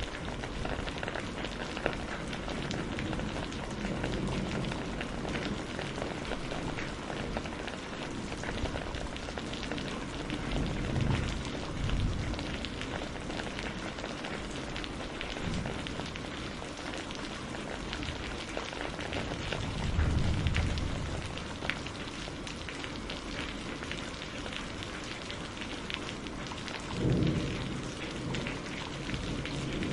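Steady rain on a greenhouse roof, a dense hiss full of fine individual drop ticks. Three brief low rumbles swell up and fade over the course of it.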